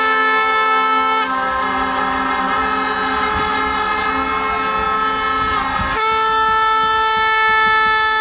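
Protesters' horns blowing together, a loud dense chord of steady overlapping tones that shifts pitch about a second in and again around six seconds in.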